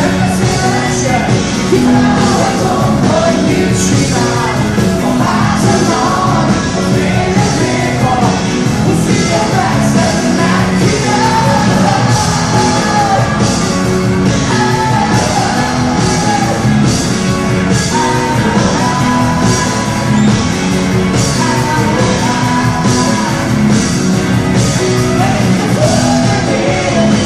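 Rock band playing live: electric guitars and a drum kit with a steady beat, and a man singing over them.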